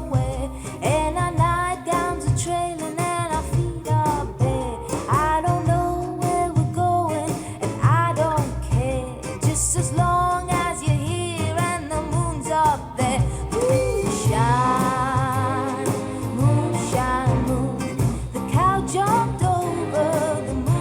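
A song with a woman singing over guitar and bass, played back through a pair of Klipsch R-15PM powered bookshelf speakers.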